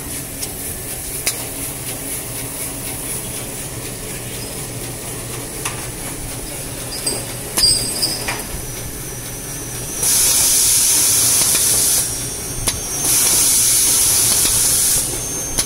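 Automatic maxi roll paper band saw cutting machine running with a steady hum and a few clicks. About ten seconds in come two loud hissing cuts, each about two seconds long with a short pause between, as the band saw goes through the paper log.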